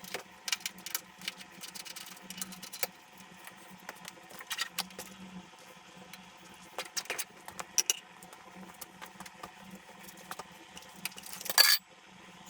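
Scattered light clicks, taps and rattles of hand tools and small metal parts being handled during motorcycle disassembly, with one louder noisy burst lasting about half a second near the end.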